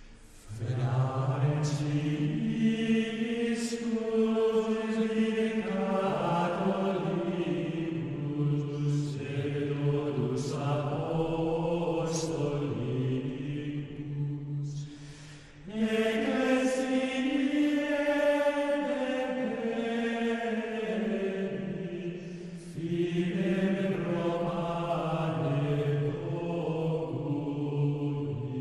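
Chanted vocal music: low voices singing a slow, single-line melody in long held phrases, in the style of plainchant. It pauses briefly about 15 seconds in and again about 22 seconds in.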